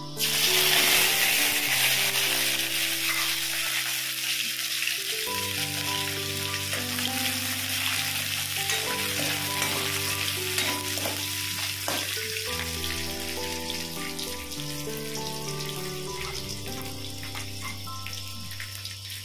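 Small dried fish sizzling in hot oil in a kadhai, the sizzle starting suddenly as they hit the oil and loudest for the first couple of seconds, then settling to a steady frying hiss as they are stirred with a steel ladle. Background music with long held notes plays underneath.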